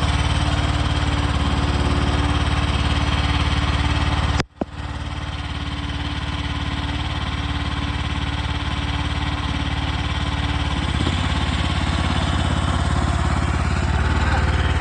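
Mini skid steer's small engine running steadily at idle, the sound cutting out for a moment about four and a half seconds in before carrying on unchanged.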